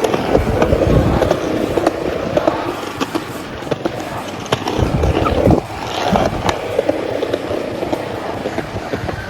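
Skateboard rolling, its wheels rumbling, with several clacks and knocks from the board. The loudest knock comes about five and a half seconds in.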